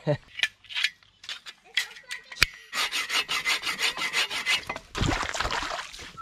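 Bow saw cutting through a wooden branch with quick, even back-and-forth strokes, about five a second, after a few scattered clicks and one sharp knock.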